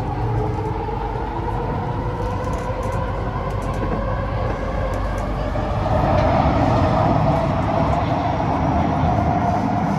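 Running noise heard from inside a Kawasaki C151A metro car in motion: a steady rumble with a drone that grows louder about six seconds in.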